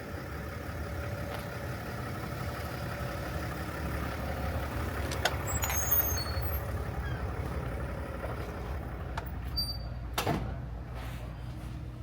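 A motor vehicle driving, with a steady low engine and road rumble, a few light clicks around the middle and a short hiss about ten seconds in.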